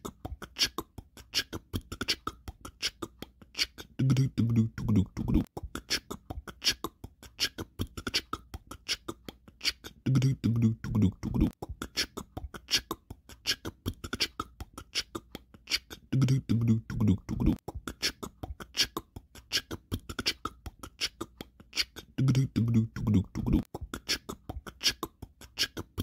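Royalty-free outro music: a busy, even percussive beat of short hits, with a low pitched phrase coming back about every six seconds.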